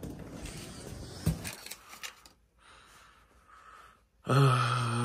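Faint rustling as a cardboard package is picked up and carried, with a single knock about a second in. Near the end comes the loudest sound: a man's low, drawn-out wordless vocal sound.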